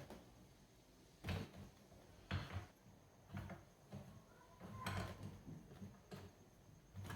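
Irregular knocks and clunks of tools and metal parts being handled while a washing machine's agitator mechanism is worked on, about six over a few seconds.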